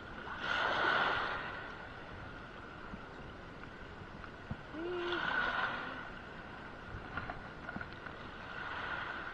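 Heavy rain and wind on open water, a steady hiss that swells louder three times: about a second in, about five seconds in and near the end.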